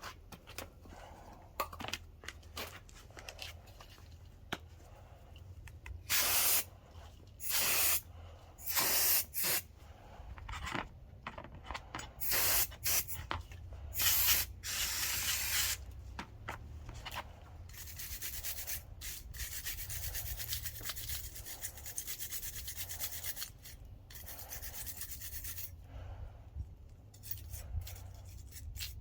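Front brake guide tabs (pad abutment clips) being scrubbed clean by hand: scattered light scraping, then a run of loud short rubbing strokes, then several seconds of steady fast scrubbing, ending in light clicks and taps. The parts are being cleaned to cure a front brake squeal.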